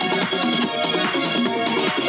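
Electronic dance music with short repeating synth notes in a quick pattern.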